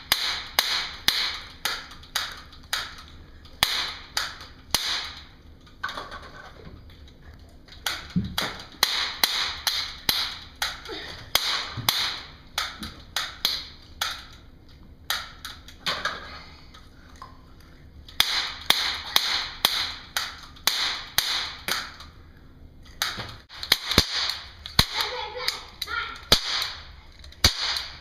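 Toy cap guns firing in runs of sharp snaps, two or three a second, with short pauses between volleys.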